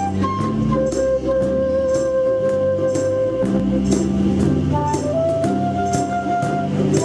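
Ukulele band playing an instrumental passage: strummed chords over a walking bass line, a melody of long held notes on top, and a percussive hit on the beat about twice a second.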